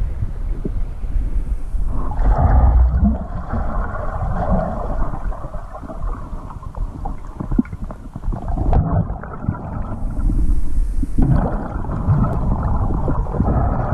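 Muffled underwater rumble and gurgling of water moving past a submerged camera as a snorkeler swims, easing briefly about nine seconds in.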